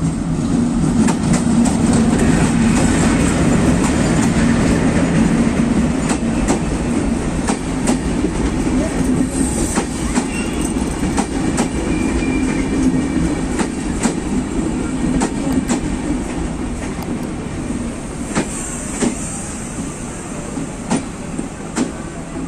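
A broad-gauge DL560C (WDM-3A) diesel-electric locomotive passing close by with its diesel engine running loud, followed by a string of intercity passenger coaches rolling past. Their wheels click repeatedly over the rail joints, and the sound eases off near the end.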